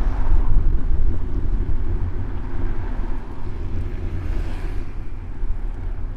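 City street traffic heard from a moving bicycle, with a steady low rumble of wind buffeting the bike-mounted camera's microphone. A hiss swells and fades about four seconds in.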